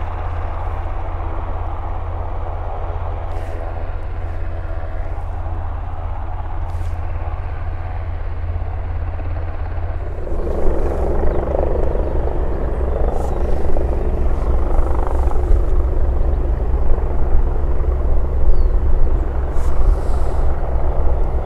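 Sikorsky S-92A helicopter's twin turbines and rotor running steadily as it taxis. About ten seconds in the sound switches to a louder, rougher helicopter rotor of a second, larger white helicopter hovering low.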